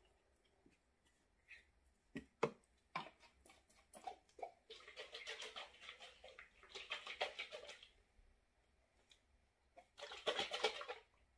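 Containers and lids being handled on a tabletop: scattered sharp clicks, then three stretches of rapid crackling rustle, the last one near the end.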